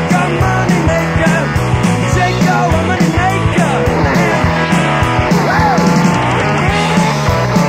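Rock and roll band music with electric guitars and a steady drum beat.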